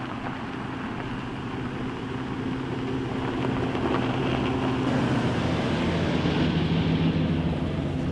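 Chevrolet Silverado pickup truck driving up a dirt track and passing close by, its engine running at a steady speed and growing louder as it approaches.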